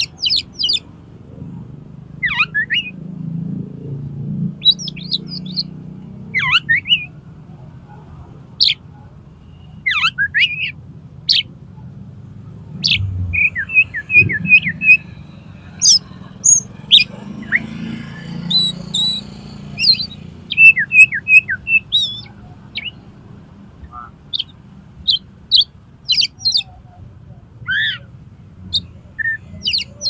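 Oriental magpie-robin (kacer) singing a loud, varied song of short, sharp whistled notes and downward sweeps, with quick runs of repeated notes a little before halfway and again about two thirds through. It is a challenge song aimed at rival males.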